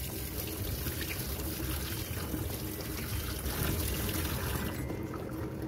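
Tap water running in a steady stream onto ivy gourds in a stainless steel mesh strainer, splashing through the mesh into a steel sink.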